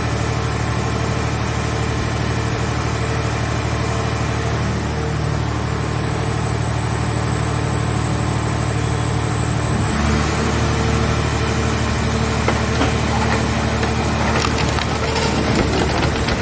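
A car scrap baler's hydraulic power unit runs with a steady drone that steps up in level and pitch about ten seconds in as it goes under load. Over the last few seconds there is a dense crackling and snapping of sheet metal as the car shell is crushed.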